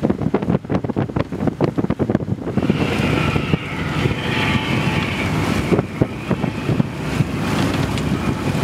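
Wind buffeting the microphone aboard a sailboat under way, in quick gusty thumps. About two and a half seconds in, a steady rushing noise sets in over it.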